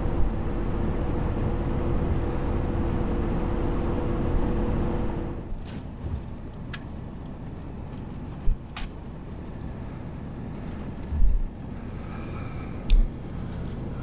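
A car driving, heard from inside the cabin: engine hum and road noise that ease off a little past five seconds in as it slows. A few sharp clicks and dull thumps follow, the loudest about eleven seconds in.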